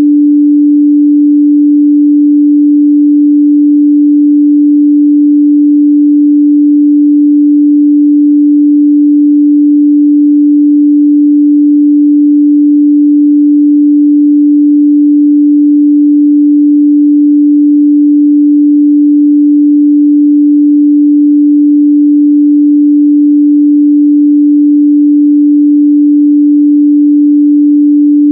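Steady pure 293 Hz sine-wave test tone, one unwavering pitch at constant loudness, used to check speaker and headphone response in the midrange.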